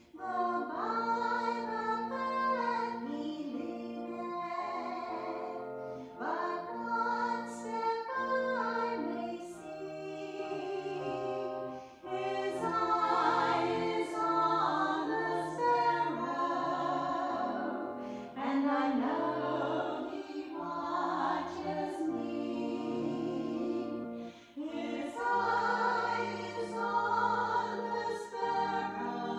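Two women singing a hymn together over instrumental accompaniment, in long phrases with short breaks between them.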